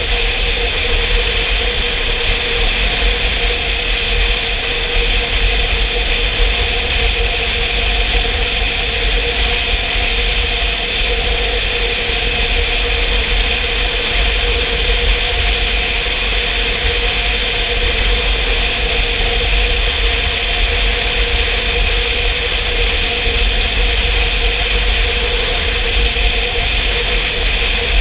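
Motorcycle cruising at a steady speed, its engine holding a constant drone, with heavy wind rumble on the microphone.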